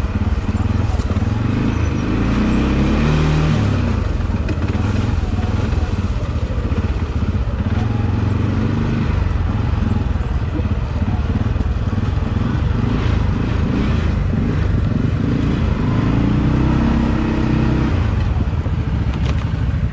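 ATV engine running as the quad is ridden, its revs rising and falling with the throttle, with marked rises about two to three seconds in and again near the end.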